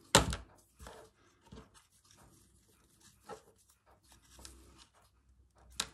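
Scissors and ribbon being handled on a craft cutting mat. A sharp clack of the scissors comes just after the start, then soft rustling and light clicks as fingers work the ribbon, with one more sharp click near the end.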